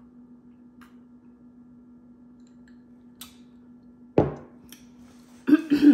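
Close-miked eating noises from someone eating fried chicken wings: one loud sudden sound about four seconds in, then a short cluster of loud sounds near the end, over a faint steady hum.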